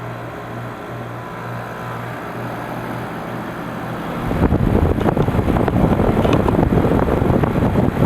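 Carrier Comfort Series 5-ton heat pump outdoor unit running in heating mode with its coil frozen up: a steady low hum from the Copeland scroll compressor and fan. About four seconds in, a much louder rushing of air on the microphone takes over.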